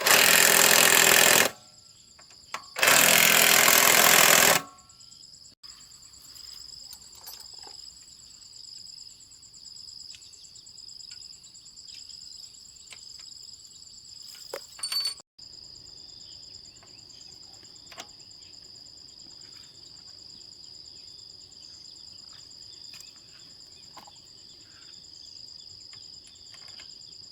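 Two bursts from a power tool working on the engine's bolts, each about a second and a half long, loud and rattling. Insects chirr steadily at a high pitch underneath.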